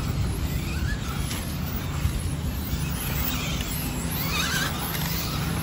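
Electric radio-controlled touring cars whining faintly as they run around the track, the pitch gliding up and down as they speed up and slow down, over a steady low rumble.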